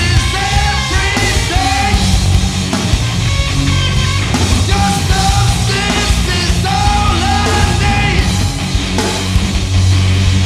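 Live rock band playing loud and full: a male vocalist singing into a microphone over electric bass and a drum kit.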